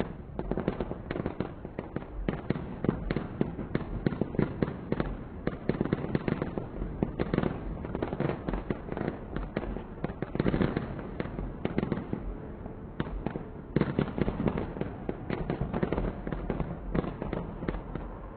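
New Year's fireworks display: a dense, continuous barrage of bangs and crackles, many reports a second, swelling in several louder surges.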